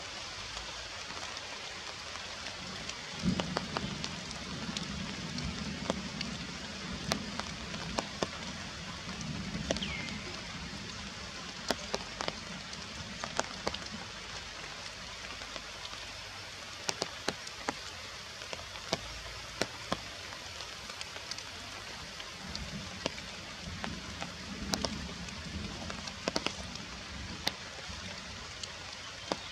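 Steady rain falling, with many scattered sharp drops and drips.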